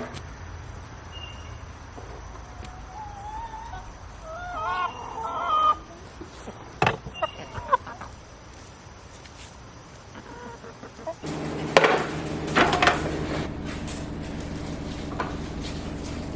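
Chickens clucking and calling in short, wavering phrases. About eleven seconds in, a steady low hum starts, with a brief clatter just after it.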